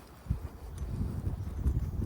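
Walking footsteps picked up by a chest-mounted camera: irregular low thuds and rumble, with a sharp knock about a third of a second in.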